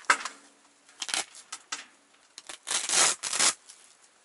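Rustling and rubbing of fabric, a tent wall and synthetic outdoor clothing being handled: a sharp click at the start, several short scrapes, and the loudest rustle about three seconds in.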